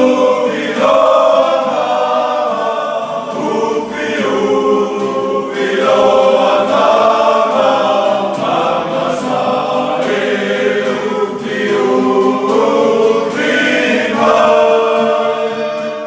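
A group of men singing together in chorus, several voices holding sustained sung phrases in unison and harmony.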